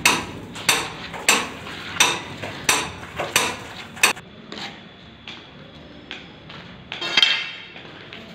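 Hammer tapping a small cut brick down into place in a floor-drain opening: sharp ringing strikes about every two-thirds of a second, seven or so, stopping about four seconds in. A brief clatter follows near the end.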